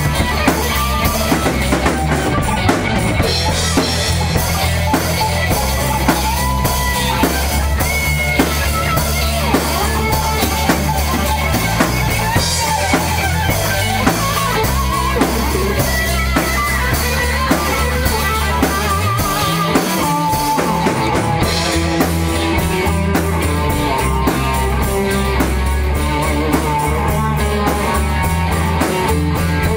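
Rock music with a drum kit keeping a steady beat under guitar and a low bass line; the low end drops out for about a second roughly two-thirds of the way through.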